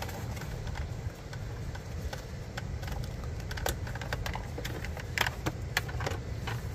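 Light plastic clicks and taps as a trimmed console cupholder tray fitted with a row of 12-volt power sockets is handled and test-fitted into its base, over a steady low rumble.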